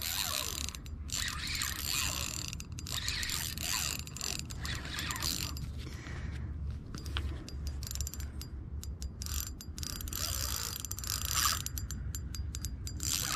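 Spinning reel being cranked against a hooked fish, its gears and drag ratcheting in quick, uneven spells of clicking with short pauses between. The drag is set light enough that the fish keeps taking line.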